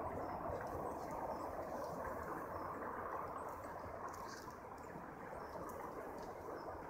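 Steady outdoor background hum with faint, scattered high chirps of small birds and a few light clicks about four seconds in; no music or voices.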